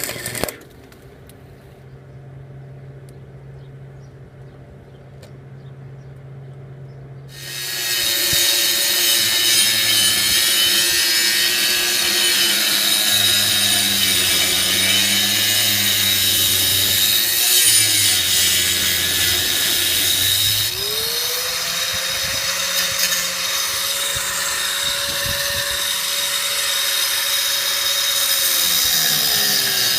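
Power tool cutting steel: a faint low hum at first, then about seven seconds in a loud, steady, high-pitched cutting noise starts. About twenty seconds in a motor tone rises and holds, then falls away near the end.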